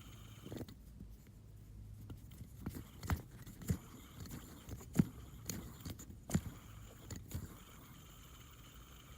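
Handling of a fidget spinner: a handful of sharp clicks and knocks, irregularly spaced about a second apart, the loudest about halfway through, over a faint steady hum.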